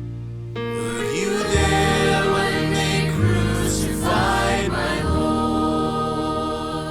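Closing bars of a slow gospel hymn: choir voices and accompaniment holding sustained chords that change every second or so, ending on a long held chord that starts to fade.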